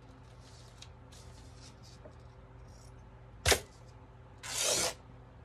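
Fabric being handled and torn into strips: soft rustling, a sharp snap about three and a half seconds in, then a half-second rip near the end.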